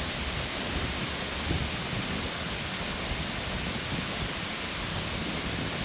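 Heavy rain falling steadily during a thunderstorm, an even hiss of rainfall.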